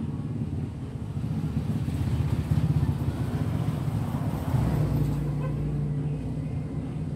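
A motor vehicle engine runs steadily, getting louder for a moment about two seconds in and again about halfway through.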